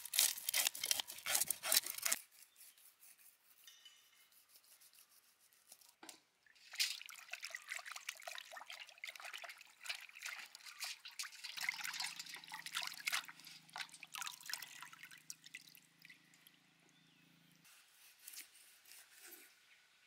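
A knife blade scraping scales off a whole red tilapia in rapid strokes for the first two seconds. Then, after a few quiet seconds, water sloshing and splashing in a metal bowl as hands rub and rinse the fish.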